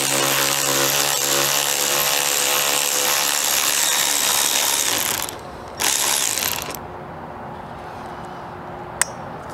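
Cordless electric ratchet with a T30 Torx socket running as it backs out a trim bolt: one long run of about five seconds, then a second short burst about a second later. A single sharp click comes near the end.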